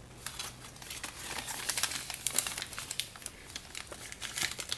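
Foil blind-bag packets of mini figures crinkling as they are handled, a dense run of crackles that is loudest about two seconds in.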